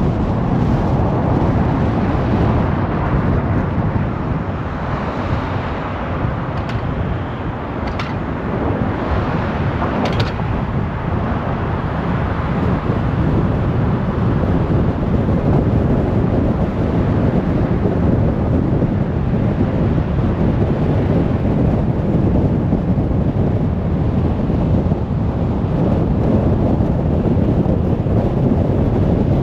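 Highway traffic: a continuous rush of cars and tyres going by, with a few brief higher hisses between about 7 and 10 seconds in.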